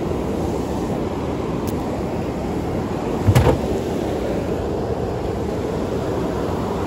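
Steady rush of a swollen, fast-flowing river's rapids. A single dull knock about three seconds in.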